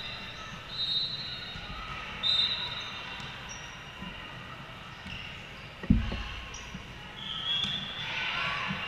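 Ambience of a large echoing sports hall. A single loud ball thud comes about six seconds in, and short high-pitched tones sound over a low background murmur.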